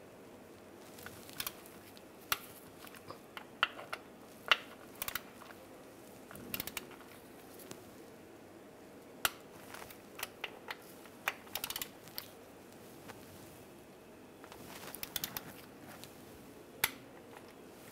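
Torque wrench ratcheting on the shift motor's bolts, making scattered sharp metallic clicks, single and in short clusters, as the bolts are brought to 13 foot-pounds.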